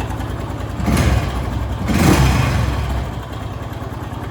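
Honda Pop single-cylinder motorcycle engine running in neutral, revved up briefly twice, with an annoying cam chain noise. The chain tensioner is not getting enough oil pressure to tension the cam chain after the wrong bolt was removed during an oil change.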